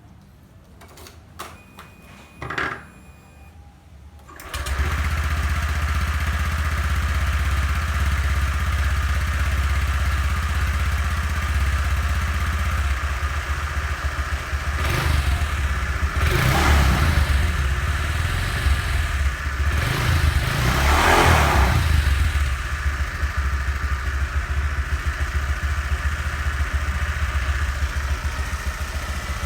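Honda Vario 150 scooter's single-cylinder engine starting about four seconds in, then idling and revved up and back down a few times near the middle. It runs with a growl ('ngorok') that new CVT parts (sliding sheave, rollers and roller housing) have not cured; the cause is unknown to the owner.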